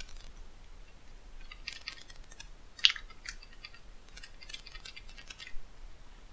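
Typing on a computer keyboard: several short bursts of keystrokes, with one sharper key strike about three seconds in.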